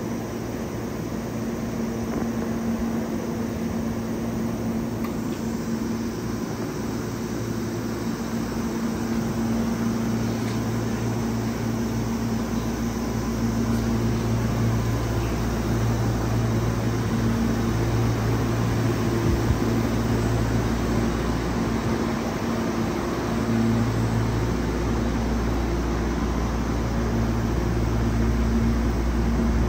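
Steady drone of a Hankyu electric train with its air conditioning running: a continuous hum, with a low tone that fades in and out several times.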